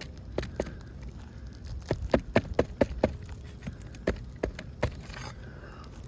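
A series of sharp taps and knocks from hand tools working loose asphalt shingles and their nails on a roof, bunched into a quick run about two to three seconds in.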